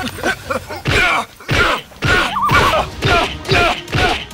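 Strained wordless vocal groans and grunts of a struggle, in short bursts about every half second, over background music.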